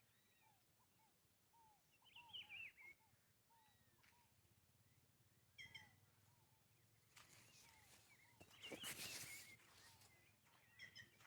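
Faint wild birds calling in caatinga scrub. One bird repeats a short arching whistled note, about two a second. Higher chattering phrases come twice, the second with a brief rush of noise about three-quarters of the way through.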